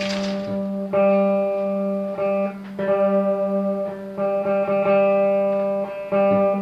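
Electric guitar plucking the same single note over and over, each pluck ringing for one to two seconds before the next. A short hissing burst right at the start.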